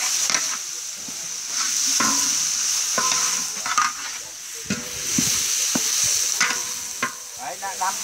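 Food frying in a hot pan with a steady sizzle, stirred with a utensil that scrapes and knocks against the pan now and then.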